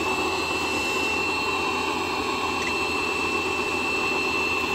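Pressure washer motor running with a steady high whine over a rushing hiss, then cutting off suddenly near the end.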